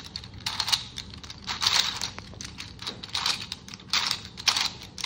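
TimeMachine puzzle, a plastic 2x2 twisty cube with numbered clock-dial pieces, being turned by hand to scramble it: short bursts of clacking turns, about one burst a second.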